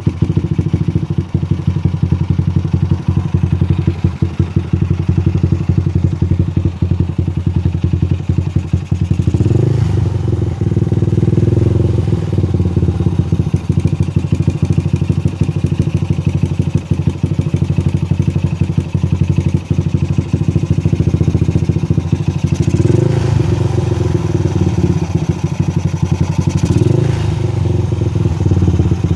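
Yamaha Scorpio motorcycle's single-cylinder four-stroke engine idling through an aftermarket HNR exhaust. It is given brief throttle blips about ten seconds in and twice more in the last third.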